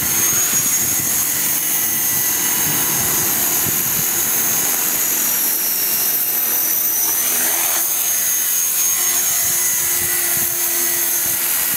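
KDS 450SV electric RC helicopter flying: a steady high whine from its motor and rotor, its pitch gliding down and up about seven to eight seconds in. Wind buffets the microphone.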